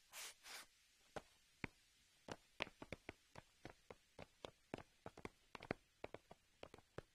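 Faint footsteps of several people in hard-soled shoes walking on stone paving: a quick, uneven patter of sharp clicks that starts after two soft rustles about half a second in.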